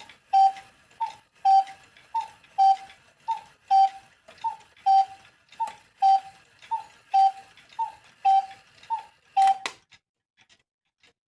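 Vintage German cuckoo clock calling the hour: its two-note "cuck-oo" bellows call repeats about nine times at an even pace, then stops with a click just under ten seconds in. The owner takes the count to be out of step with the hands, which he says are set wrong.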